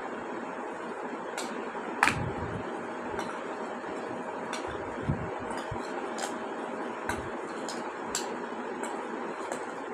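Metal spoon scraping and tapping in a steel bowl of crushed naphthalene powder: irregular sharp clinks about once a second over a steady grainy hiss, the loudest clink about two seconds in.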